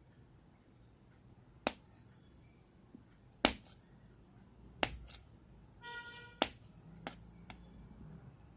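Knife cutting boiled gram-flour dumplings into small pieces, its blade knocking down on the cutting surface: about six sharp, separate knocks a second or so apart, with a short ringing clink about six seconds in.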